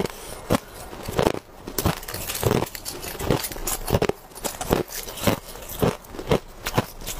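Close-miked crunching of hard, thin ice slabs being bitten and chewed, a sharp crunch about twice a second.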